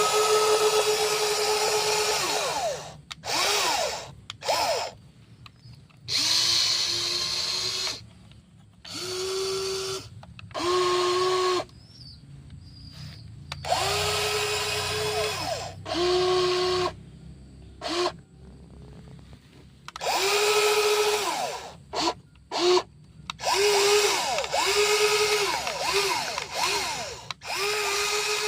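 Electric gear motors of a WL16800 RC model excavator whining in repeated bursts of one to three seconds, each spinning up and winding down as the arm and bucket move.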